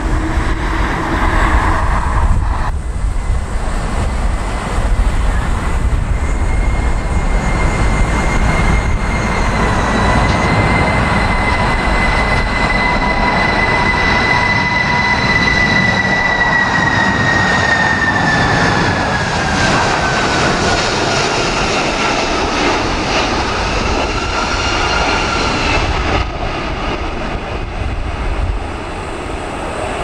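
Boeing 747 freighter on final approach: its engines' high whine holds steady, then falls in pitch as the jet passes overhead, over a constant low rumble of jet noise and strong wind on the microphone.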